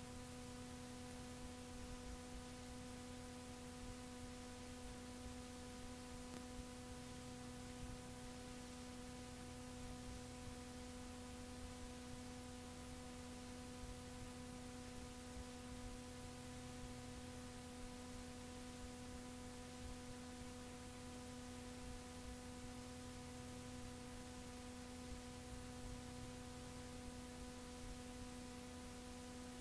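Faint steady electrical hum with overtones over an even hiss, unchanging throughout: the noise floor of the cassette transfer, with no music playing.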